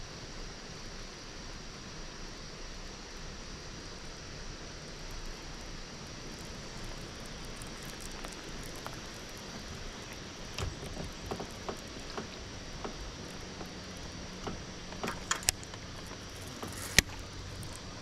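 Steady outdoor hiss, with scattered light clicks and knocks in the second half and one sharp click near the end, from a baitcasting rod, reel and lure being handled as the lure comes in.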